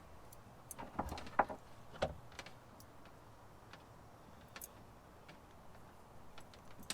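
Light clicks and taps from handling a multimeter and its test leads, a small cluster in the first two seconds and then only a few faint ticks.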